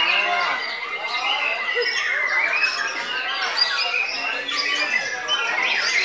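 White-rumped shama singing: a fast, varied run of rising and falling whistles with a held whistle near the start.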